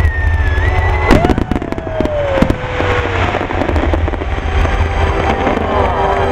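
Aerial fireworks bursting and crackling, with the loudest bang about a second in, over a steady deep rumble and gliding tones.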